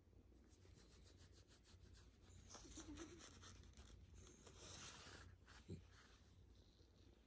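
A hand rubbing and scratching a Shiba Inu's belly fur, first in quick rhythmic strokes, then as soft rustling while the dog squirms on a fabric mat. A short soft thump comes near the end.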